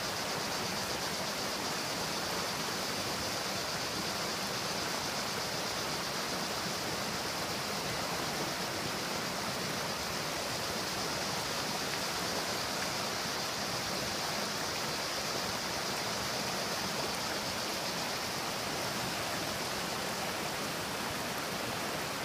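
Creek water rushing steadily over rocks in a shallow riffle, a continuous even hiss with no change.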